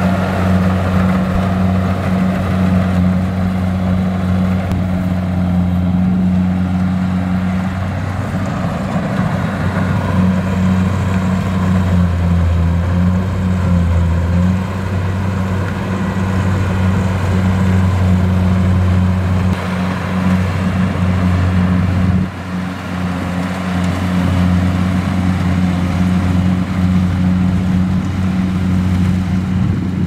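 Kubota DC-70 combine harvester running under load as it cuts and threshes rice: a steady low diesel drone with the clatter of its threshing machinery. The sound dips briefly about two-thirds of the way through, then carries on.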